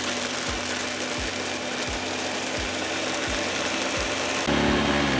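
Countertop blender running at high speed, a steady whir as it whips water and chocolate chips into a froth. Near the end the motor's sound changes to a louder, pitched hum that begins to drop in pitch.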